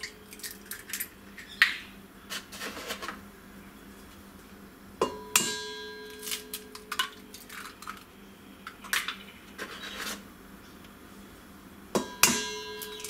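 Small silkie-hen eggs tapped against the rim of a stainless steel mixing bowl and cracked open, with scattered clicks of shell. Two sharp knocks, about five seconds in and near the end, set the steel bowl ringing.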